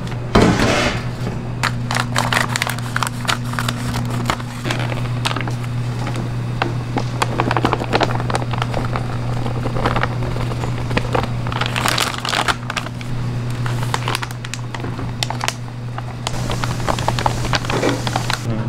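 Food-stall cooking sounds: scattered clicks, crackles and rustling over a steady low electrical hum.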